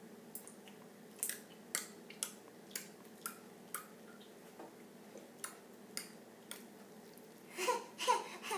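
A toddler's mouth smacking as she chews a blackberry: short wet clicks about two a second, then laughter breaks out near the end.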